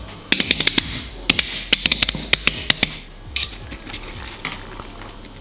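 Hands slapping the base of an upturned clay pot, a dozen or so sharp knocks in quick clusters, mostly in the first three seconds. The knocks loosen the mutton mandi rice so the pot can be lifted off and the rice turned out.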